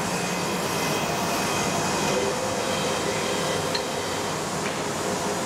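Reid surface grinder running with a steady whirring hiss and a faint whine, getting louder right at the start.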